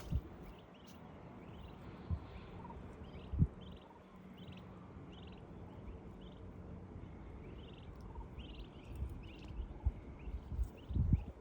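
Turkey poults peeping: a string of short, high calls about one every half second to a second, with several dull low thumps, the loudest a cluster near the end.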